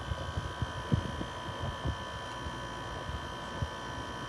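LG LW6017 6000 BTU window air conditioner running steadily with the compressor on and the fan on high: a constant hum with several steady whining tones, and a few soft low knocks.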